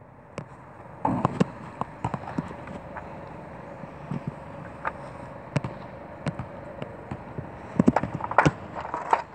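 RipStik caster board rolling over pavement: a steady rolling rumble with scattered clicks and knocks, which come thick and loud near the end.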